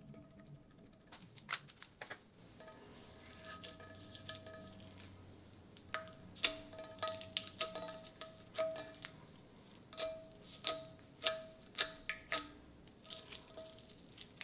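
Ultra clear slime being squeezed and stretched by hand, giving sharp wet clicks and pops, few at first and coming thick and fast in the second half.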